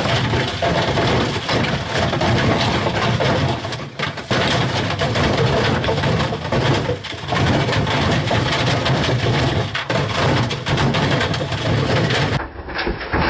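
White Knight tumble dryer running with bricks and a hammer tumbling in its metal drum: loud, continuous clattering and banging as the load is thrown about.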